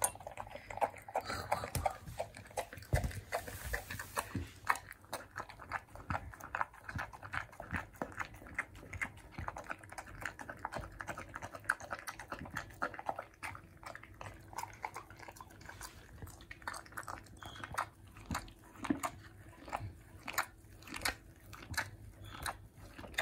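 A chow chow chewing its food from a bowl: a long run of quick, uneven crunching chews, turning to licking the bowl near the end.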